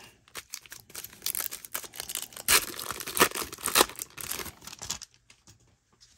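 Wrapper of a 1991 Score baseball card pack being torn open and crinkled by hand: a run of sharp tearing and crackling, loudest in the middle, dying away about five seconds in.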